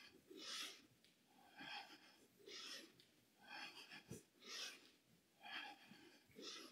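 A woman breathing hard and evenly through a plank exercise, quiet hissing breaths about one a second, in and out in turn.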